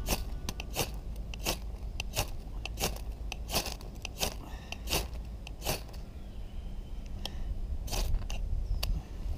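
A knife scraped down a ferrocerium rod again and again, throwing sparks onto birch-bark tinder to light a fire. There are about a dozen sharp rasping strikes a little under a second apart, with a short pause about two-thirds of the way through.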